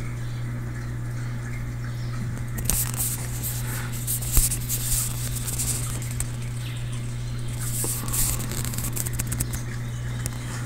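Steady low hum of aquarium equipment. From about three seconds in, irregular crackling and light clicks come and go, with one sharper click.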